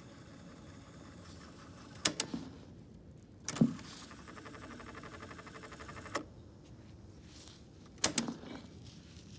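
Mechanical piano-key transport buttons of a Citizen JCTR141K boombox cassette deck clicking, in pairs about two and eight seconds in. A single heavier clunk at about three and a half seconds starts a fast, even whirring of the tape transport. The whirring lasts about two and a half seconds and stops with a click.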